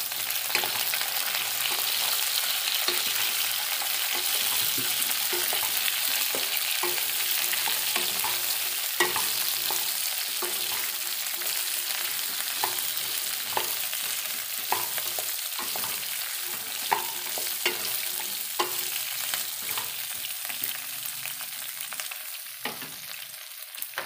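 Chopped vegetables (brinjal, okra, drumsticks, onions) sizzling in hot oil in a wok while being stirred with a wooden spatula, which knocks against the pan about once a second. The sizzle fades near the end.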